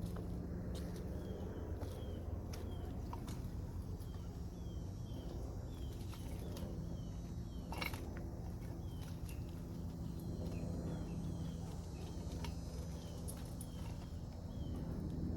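A bird giving short, falling chirps over and over, over a steady low hum and a few scattered clicks.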